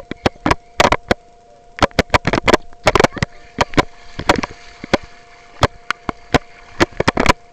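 Handling noise on a small action camera: irregular sharp knocks and clicks as the camera is bumped and rubbed against the head and hands, some in quick clusters. A steady two-note electronic hum runs underneath.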